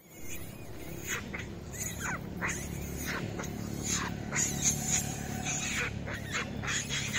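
Long-tailed macaques screaming in a scuffle: a run of short, sharp shrieks, about two a second, from about a second in, over a steady low hum.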